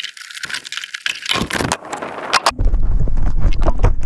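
Handling noise on the quadcopter's onboard action camera as it is picked up by hand from the grass: irregular crackling rustles and clicks, turning about two and a half seconds in into a loud low rubbing with sharp clicks as fingers grip the camera and cover its microphone.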